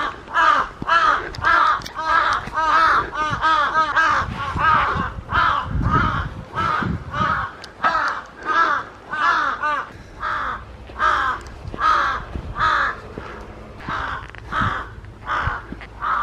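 Crows cawing harshly in an unbroken series, nearly two caws a second, mobbing aggressively overhead.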